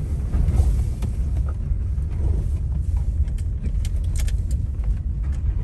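A vehicle driving along a dirt road, heard from inside the cab: a steady low rumble of engine and road, with scattered small clicks and rattles.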